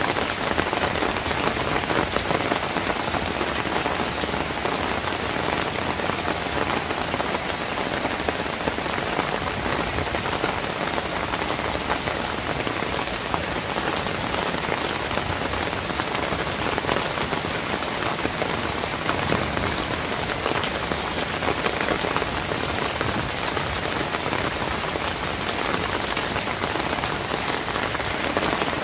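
Steady rain falling, a dense even hiss full of small drop ticks, holding the same level throughout.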